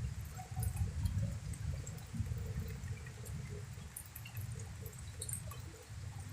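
Heavy rain falling, with many scattered drops ticking and dripping over a steady low rumble.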